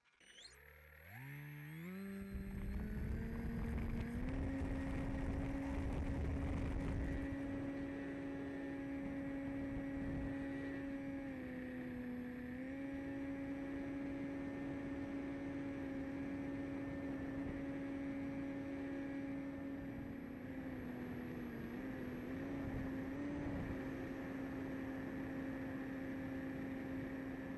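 Radio-controlled airplane's motor and propeller spinning up from rest in a whine that climbs in steps over about four seconds, then running steadily, heard from the onboard camera with wind rushing over the microphone. The pitch dips briefly around the middle and wavers a few times later on.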